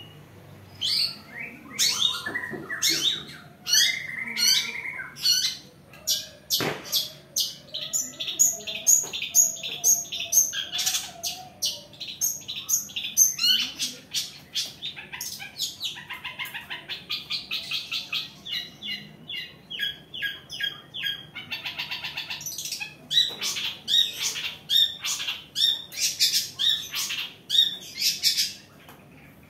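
Caged long-tailed shrike (cendet) calling: a busy run of sharp chirps and harsh calls, with stretches of fast chatter and a few short, steadier notes.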